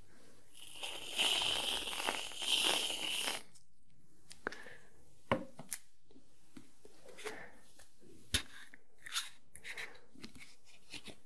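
Aerosol whipped-cream can spraying cream with a hissing sputter for about three seconds, in two surges. Then scattered small clicks and taps of containers being handled.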